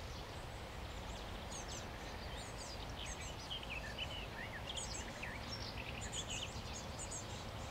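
Small songbirds chirping and calling, with many quick high chirps and short trills throughout, over a low steady rumble.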